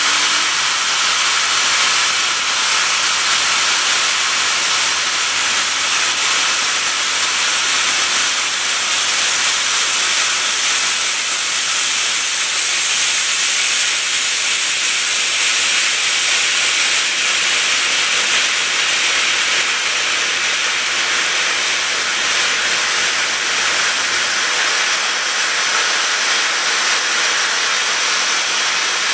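NACHI starting drill cutting a V-groove along the edge of a metal block on a machining centre: a steady, high-pitched hissing cutting noise that does not let up.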